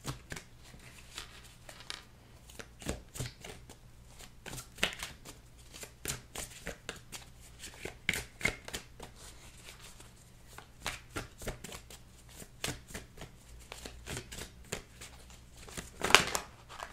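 A deck of tarot cards being shuffled by hand, the cards rustling and slapping in quick, irregular strokes, with a louder flurry about a second before the end.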